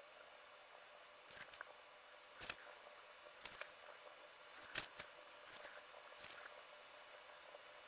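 Faint, scattered clicks and short scratches, about ten over the stretch, from a Copic alcohol marker nib working lightly along the edge of the image on cardstock while the card is shifted and turned on the desk.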